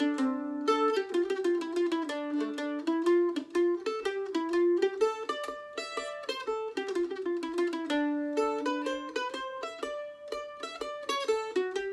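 Solo mandolin playing an Irish reel: a continuous run of quick, even, picked single notes that step up and down the melody.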